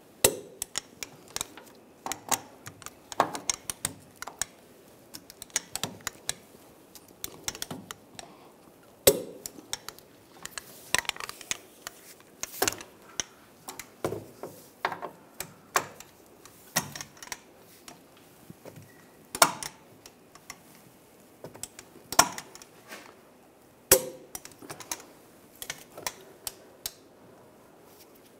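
Torque wrench ratcheting in short strokes as the rear wheel hub assembly's mounting bolts are tightened to 77 ft-lb: irregular sharp metal clicks, with a few louder single clicks spread through.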